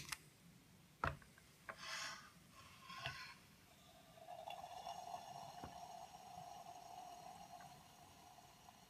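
A lit spirit burner for a toy steam engine being handled: a few light knocks and short scrapes as it is set down and slid under the boiler, then a soft steady hiss from about four seconds in that stops near the end.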